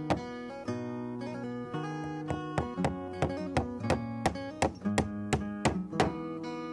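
Acoustic guitar music, plucked and strummed in a steady rhythm.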